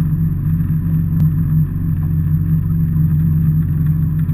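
Jet ski engine running steadily, a loud, even, low drone that holds without change.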